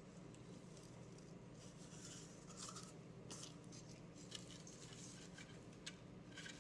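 Near silence: a low steady room hum with a few faint, scattered clicks.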